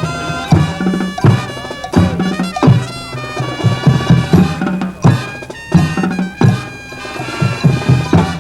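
High school marching band playing a Latin jazz arrangement: sustained brass and woodwind chords over the drumline, punctuated by loud accented ensemble and drum hits roughly every three-quarters of a second.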